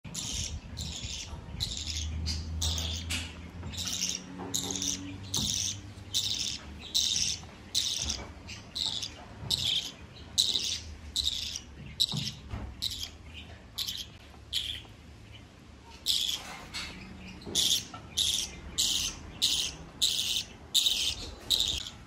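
Budgerigar chicks chirping: short raspy calls repeated in quick succession, nearly two a second.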